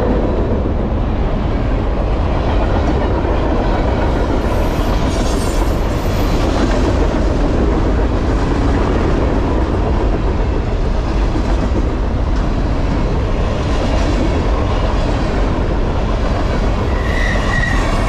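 Loaded freight gondolas of a trash train rolling past, their steel wheels making a loud, steady rumble on the rails, with a faint high wheel squeal near the end.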